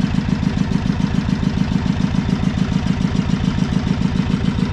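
Fishing boat's engine running steadily, with an even, fast chugging beat.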